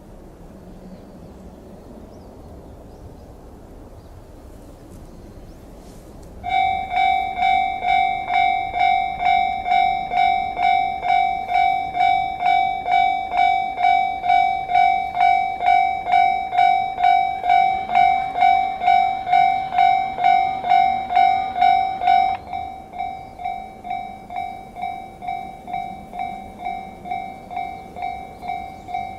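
Japanese railroad crossing warning bell starting suddenly about six seconds in, ringing a steady, rapid clang of about two strikes a second. About three-quarters of the way through it drops to a noticeably quieter level and keeps ringing.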